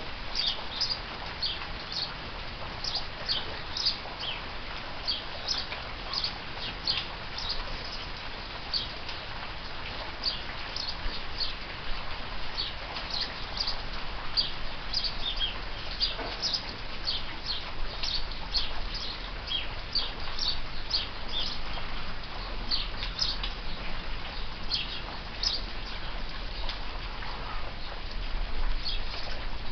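House sparrows chirping over and over, short high chirps several a second, against a steady hiss of falling rain.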